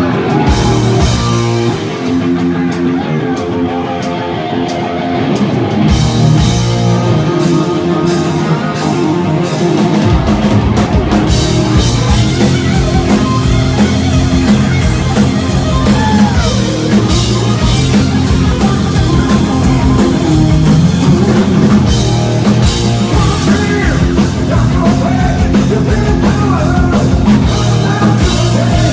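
Hard rock band playing live, electric guitar and drum kit: a sparser opening, with drums and cymbals coming in about six seconds in and the bass and full band from about ten seconds.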